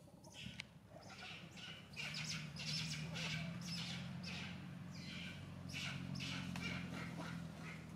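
Short high-pitched animal calls repeating about twice a second, starting about two seconds in, over a steady low hum.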